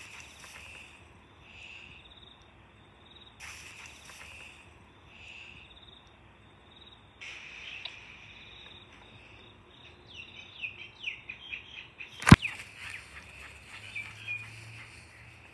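Birds chirping: short chirps repeated throughout, then a quick run of falling chirps about ten seconds in. One sharp click stands out just after the run.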